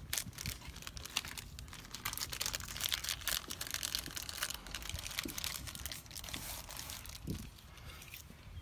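Crinkling, rustling handling noise with many small clicks as short doorbell wires are joined to a Ring doorbell kit's extension wires.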